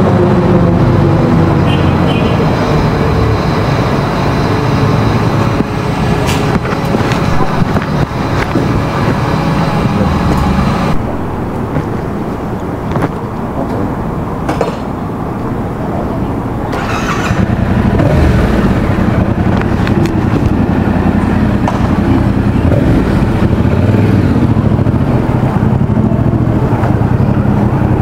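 Vehicle engines and road traffic, a steady low rumble, recorded close to a motorcycle's exhaust. About halfway through the sound dips for several seconds. It then returns with the Yamaha XSR700's parallel-twin engine running steadily as the bike moves off.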